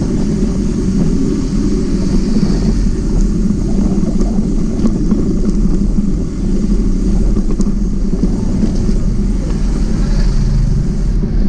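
Steady low rumble of wind and tyre noise on a camera riding on a moving bicycle.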